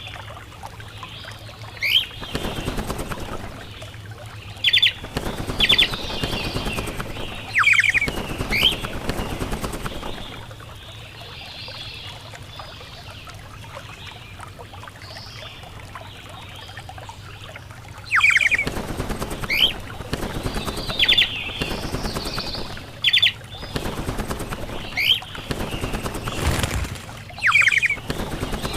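Birds giving short, sharp calls, some as quick double or triple notes, every second or two over a rustling noise, with a quieter spell of several seconds in the middle.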